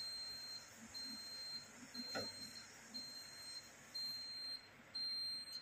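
An electronic alarm beeping about once a second: a single high steady tone, each beep lasting about half a second, six beeps in all.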